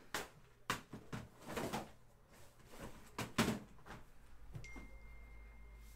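Handling noise of boxes of trading cards being picked up: a few sharp knocks and clunks with rustling over the first three and a half seconds, then quieter.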